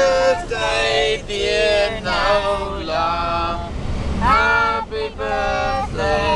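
A child singing with held, gliding notes inside a moving car, over the steady low rumble of the car's engine and tyres.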